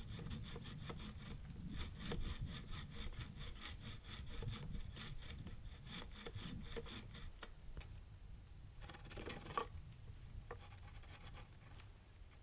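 Hand saw cutting through wood in quick, even strokes, which turn irregular after about seven seconds, with a sharp knock near the end.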